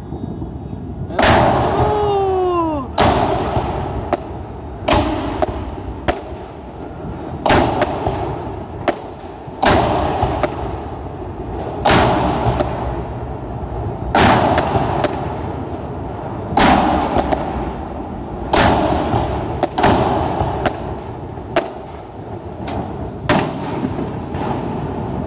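Aerial fireworks bursting overhead in a string of sharp booms, one every second or so. A falling whistling tone sounds among the first bursts.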